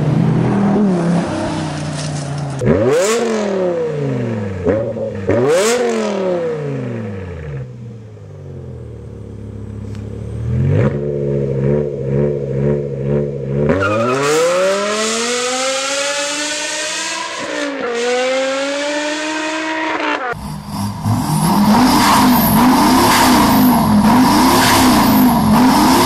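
Odd-firing V10 engines revving in a run of clips. A Dodge Viper V10 accelerates past, its pitch sweeping up through the gears and then dropping away. From about 14 s in, a BMW E60 M5's S85 V10 revs up, and near the end a Volkswagen V10 TDI diesel is blipped over and over.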